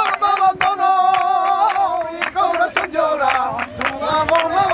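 Singing in a wavering, ornamented style over steady rhythmic handclapping, about three to four claps a second, with a crowd's voices behind.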